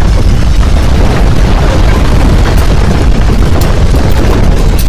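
Landslide sound effect: a loud, deep, continuous rumble with crackling over it, at an even level throughout.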